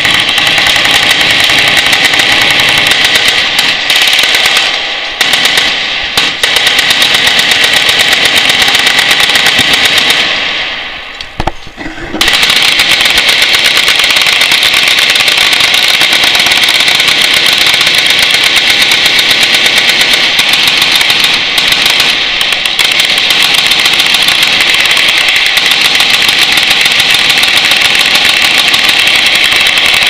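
Several machine guns firing together in long overlapping bursts, a dense continuous rattle of shots. The firing eases for a couple of seconds about ten seconds in, then picks up again.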